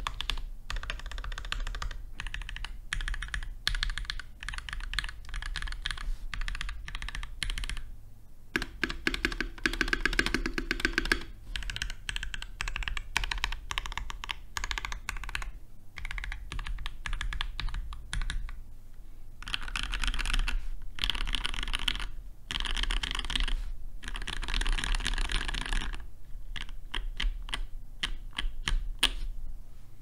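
Typing on a custom mechanical keyboard: lubed Durock L4 Creamy Purple switches on an aluminium plate, with foamed case and PBT keycaps, keystrokes coming in quick runs with brief pauses between them.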